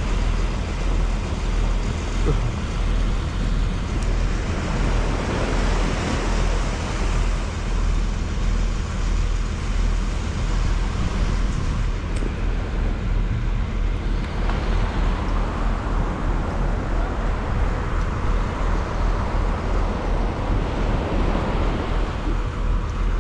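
Steady rushing of breaking surf mixed with wind buffeting the microphone as a deep, uneven rumble.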